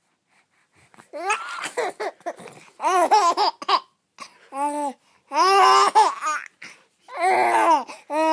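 A baby laughing and babbling: a run of high-pitched giggles and squealing vocal bursts, starting about a second in, with short pauses between them.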